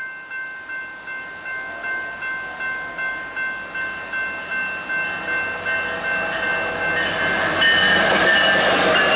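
Railway crossing warning bell ringing at a steady beat of about three strikes a second. In the last two seconds the GO Transit MP40PH-3C diesel locomotive arrives and its rushing wheel and engine noise swells to become the loudest sound.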